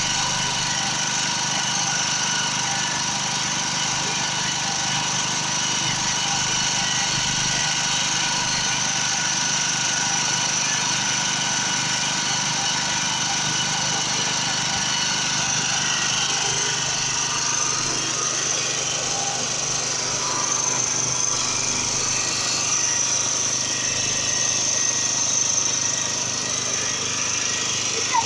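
Generator engine running steadily at a constant speed.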